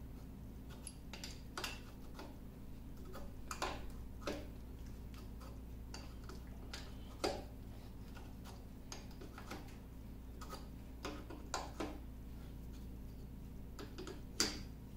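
Steel adjustable wrench clicking and clinking against a bolt on a lathe's quick-change gearbox as it is turned and refitted to the nut, in irregular metal ticks. The sharpest clinks come about seven seconds in and again near the end.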